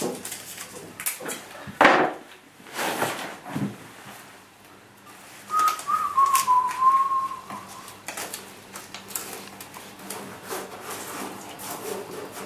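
Masking tape being handled, torn and pressed down, with several short rustling tears in the first few seconds and lighter handling noises later. A short wavering whistle, falling slightly in pitch, sounds about halfway through.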